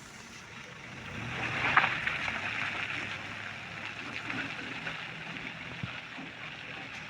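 A truck moving on a wet, muddy road, with a hiss of water and mud that swells about a second in and a sharp knock shortly after.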